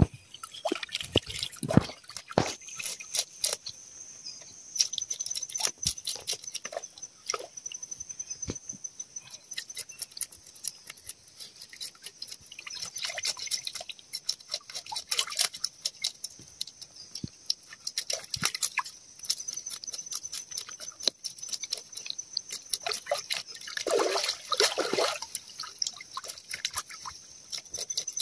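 A fish being scaled and cleaned with a knife at the water's edge: irregular scraping clicks of the blade on the scales, mixed with splashing and dripping as the fish is dipped and rinsed in the river.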